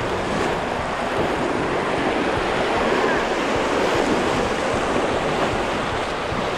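Whitewater rapids rushing and splashing around the bow of a canoe running through them, a loud, steady roar of water.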